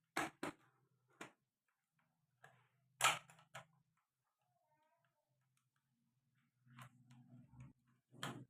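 A few sharp clicks and knocks, the loudest about three seconds in, with a faint low hum in places.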